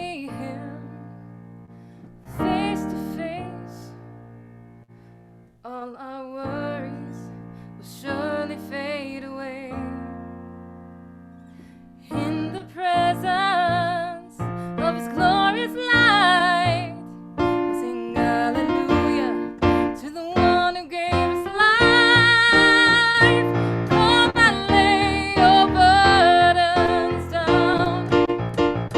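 Slow piano music: chords left to ring and fade. About twelve seconds in it grows fuller and louder as a melody with vibrato joins.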